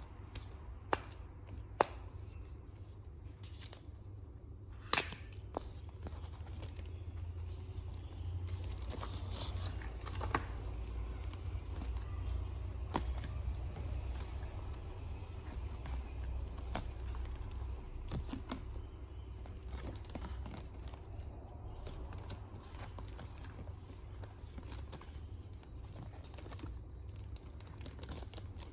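Hands unpacking stationery: packaging and paper rustling and tearing, with scattered clicks and a few sharp taps, the loudest about five seconds in, over a steady low hum.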